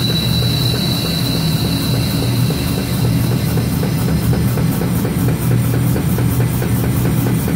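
Old shop pit jack running steadily with a fast, even pulse as it raises a locomotive's pilot wheelset back up into the truck. A high whine fades out over the first few seconds.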